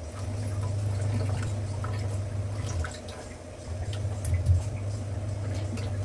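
Wet hands in water scraping wheat dough off the fingers: faint drips and splashes over a steady low hum that dips briefly about three seconds in.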